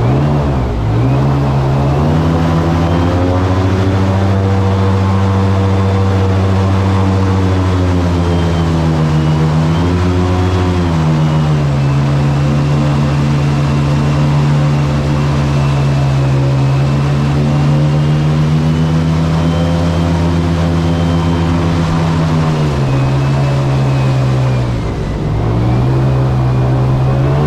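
Boat's outboard motor running steadily under way. Its pitch dips and comes back up a few times, about a second in, around ten seconds in, and twice near the end, as the throttle eases and opens.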